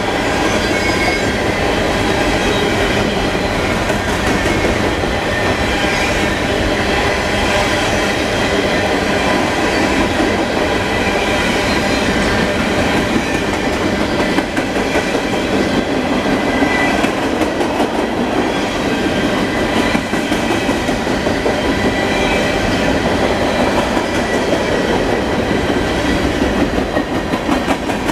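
Freight cars of a long CSX mixed freight rolling past at speed: a steady rumble of wheels on rail with clickety-clack over the rail joints and faint high wheel squeal.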